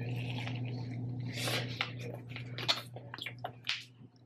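Crunching and chewing as a crispy Popeyes fried chicken sandwich is bitten into and eaten, with several sharp crunches between wetter chewing noises.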